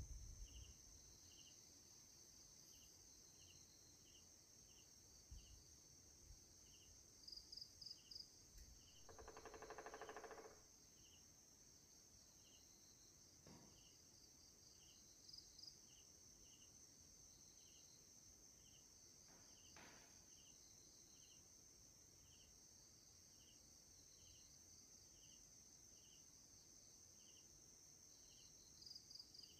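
Near silence with faint insects: short chirps repeating about once a second over a steady high drone. There are a few soft knocks in the first nine seconds and one brief call lasting over a second at about nine seconds.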